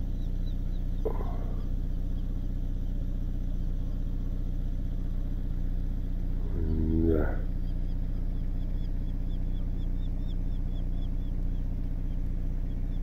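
A steady low hum, with a short drawn-out call about seven seconds in and faint high chirps repeating through the second half.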